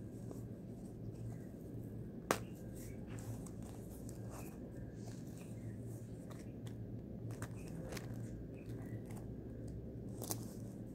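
Handling and opening a black faux-leather screwdriver-kit pouch: one sharp click about two seconds in as a press-stud snap comes apart, then soft rustling of the case and small scattered clicks, with a brief rustle and clicking near the end as the metal bits are touched. A steady low hum runs underneath.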